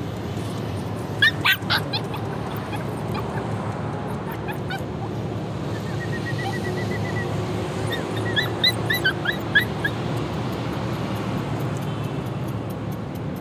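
Dogs yipping and whimpering: a few sharp yips about a second and a half in, then a run of short high whines near the middle, over a steady background noise.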